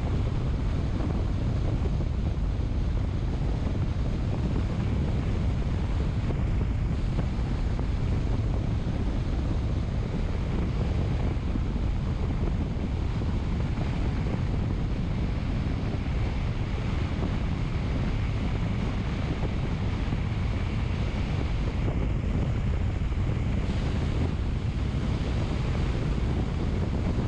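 Steady wind noise buffeting the microphone, an even rushing sound with a heavy low rumble and no breaks.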